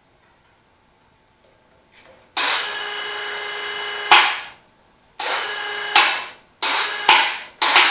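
Electric hoist lowering a tractor engine in short bursts of its motor: one run of about two seconds, then three shorter ones, each ending in a louder jolt as it stops.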